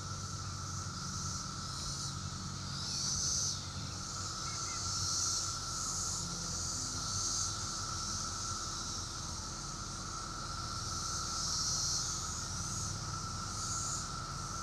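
A chorus of 17-year periodical cicadas: a steady, even drone, with higher-pitched swells that rise and fade every second or two over it.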